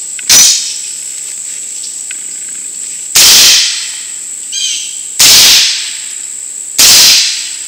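Suppressed Ruger Mini-14 rifle in 300 AAC Blackout firing four single shots at uneven intervals. The rifle is firing Hornady 208-grain subsonic rounds, and each new shot is a sign that the action is cycling them with the silencer fitted.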